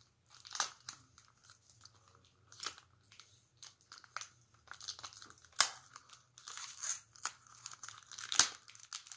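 Thin clear plastic card-pack wrapper crinkling and tearing as it is opened by hand, in irregular crackles that come more often and louder in the second half.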